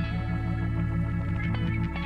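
Meditation music: a looped guitar instrumental layered over a held church organ note, with isochronic tones, a low tone pulsing rapidly on and off.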